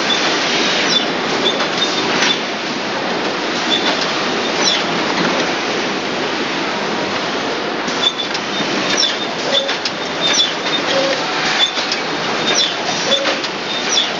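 Sorma FLW-150 flowpack machine running at production speed: a steady mechanical clatter with frequent sharp clicks. From about halfway through, short high squeaks or beeps repeat roughly once a second.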